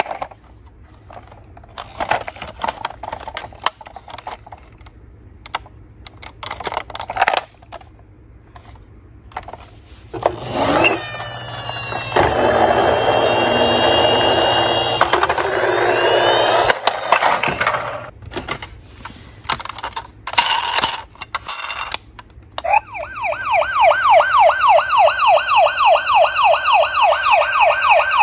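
Plastic toys knocking and rattling against a cardboard box, then a few seconds of electronic gliding tones from a toy's sound module. From about two-thirds of the way in, a battery-powered toy ambulance's electronic siren sounds loud, in a fast yelp of rising and falling sweeps about four a second.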